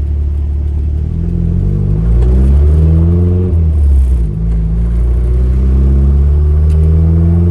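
Turbocharged Mazda Miata's engine pulling under acceleration. The note rises, drops sharply at an upshift about three and a half seconds in, then rises again as the next gear pulls.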